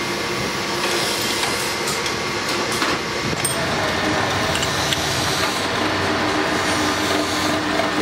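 Electric bench drill press running steadily while its bit drills into a metal padlock shackle clamped in a vise, with a few light clicks of metal over the steady machine noise.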